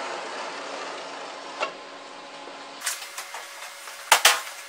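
Powder-bed 3D printer running as its roller and carriage spread a layer of powder across the build bed, a steady mechanical noise. Near the end come a few sharp clacks, the loudest sounds.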